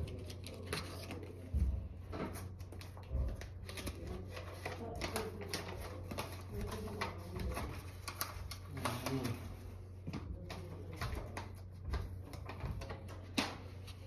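Irregular clicks, taps and rustling of something being handled close to the microphone, with a few heavier thumps, over a steady low hum.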